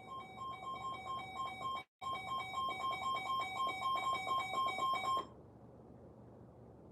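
Emergency alert broadcast tone: a rapid train of electronic beeps, about four a second, cutting out for an instant near two seconds in and stopping abruptly a little after five seconds.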